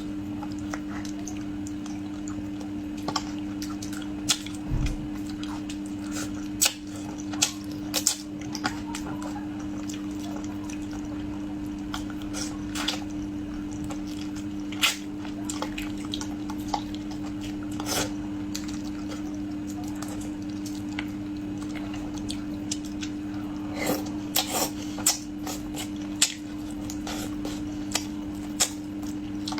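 Close-miked eating of braised fish: irregular wet smacks, squishes and clicks of chewing and lip smacking. A steady low hum runs underneath.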